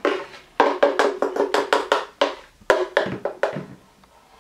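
Metal spoon knocking and scraping against the plastic jar of a Vitamix blender while scooping out thick tomato sauce: a fast run of taps, about six a second, from about half a second in, then a few more knocks around three seconds in.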